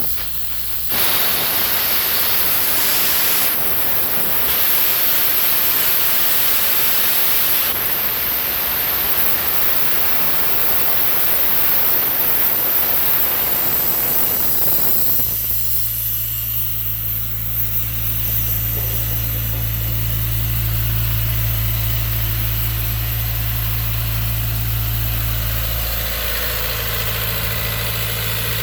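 Doosan C185WKU portable air compressor running: a loud, even rushing hiss for about the first half. About halfway through the hiss stops, leaving the engine idling with a steady low hum.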